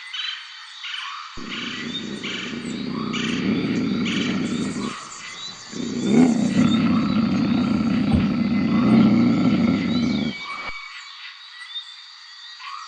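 A big cat roaring in two long, deep bouts, with birds chirping throughout.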